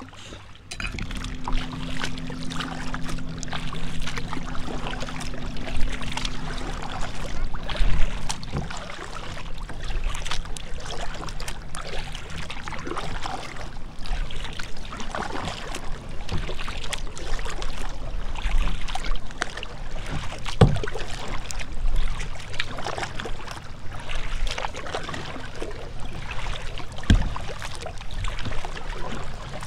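Choppy lake water lapping and slapping against the plastic hull of a kayak, with many small splashes. A low steady hum runs under it for the first eight seconds or so.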